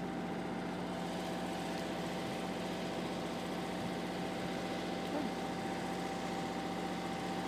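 Steady mechanical hum with a constant pitch, like an engine idling, unchanging throughout.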